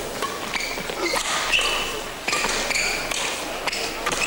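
Badminton doubles rally: sharp racket strikes on the shuttlecock and several short, high squeaks of shoes on the court floor.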